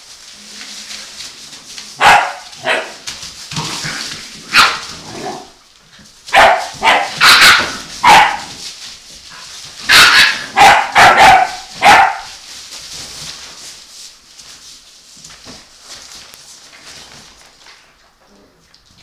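Eight-week-old puppies yapping and barking in short, high, sharp calls while they play. The calls come in several quick volleys, loudest in the middle, and die down over the last several seconds.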